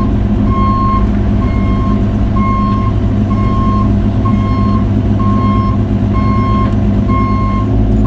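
Cat 303 mini excavator travelling: its diesel engine running steadily under load while the travel alarm beeps about once a second.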